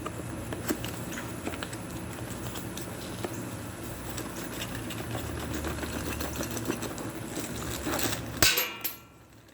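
Small clicks and rattles of a boxed rifle bipod and its parts being handled and unpacked, over a low steady hum. Near the end comes one loud clatter as the parts drop to the floor.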